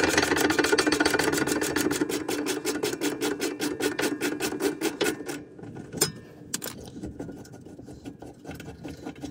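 Air tool rattling rapidly and evenly as it works a rear brake fastener loose, stopping about five seconds in. A few single clicks of metal follow.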